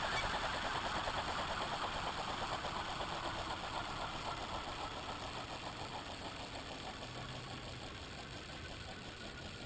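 HK600GT RC helicopter's rotor and motor spooling down: a rapid chopping pulse that slows and fades steadily, with a faint whine falling in pitch.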